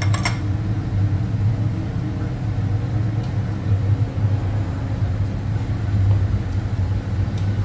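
Steady low droning hum of kitchen machinery, with a few light clicks right at the start.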